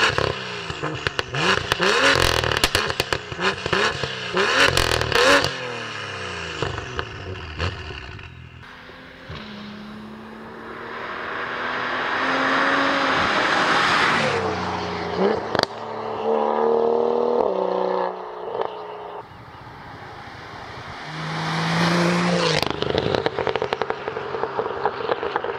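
BMW M2's turbocharged straight-six through an Fi aftermarket exhaust: quick rev blips with rapid crackles and pops for the first five seconds or so, then several long runs rising and falling through the revs, with more crackling near the end.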